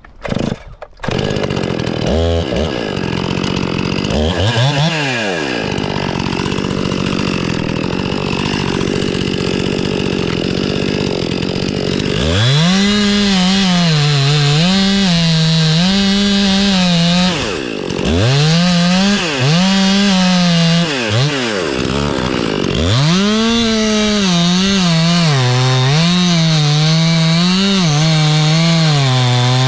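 Chainsaw starting about a second in and revved briefly a couple of times, then from about twelve seconds in cutting a face notch into a maple trunk, its engine pitch rising and falling as the chain loads up in the wood. The saw drops back briefly twice before cutting on.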